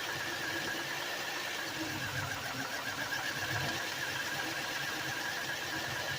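1996 Chevrolet Lumina's V6 engine idling roughly: an uneven low rumble with a steady high whine over it. The owner puts the rough running down to dirty fuel injectors.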